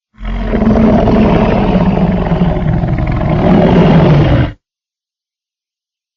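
A fictional dinosaur roar edited together from big-cat, dinosaur and monster roars: one long, deep growling roar lasting about four seconds that ends abruptly, then silence.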